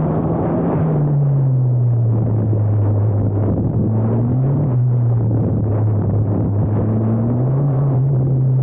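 Formula Abarth single-seater's 1.4-litre turbocharged four-cylinder engine running loud under load, its note dipping about a second in and rising briefly twice later with gear and throttle changes.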